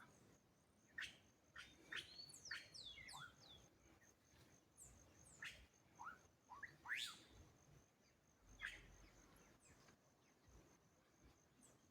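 Faint birdsong: scattered short chirps and whistled sweeping notes, a quick series of falling chirps around two to three seconds in and a rising call about seven seconds in.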